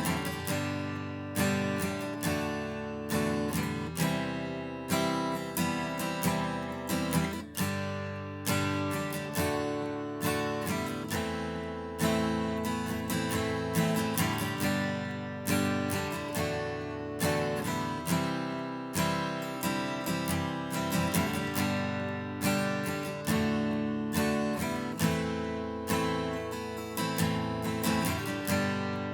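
Replica Gibson J-200 jumbo acoustic guitar strummed in a steady rhythm, chord after chord ringing out and changing, played with its stock factory strings, saddle and bridge pins.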